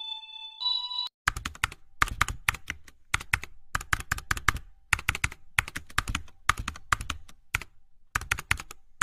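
A short electronic chime ends about a second in. Then come rapid clicks in irregular bursts with brief pauses, like fast typing on a computer keyboard.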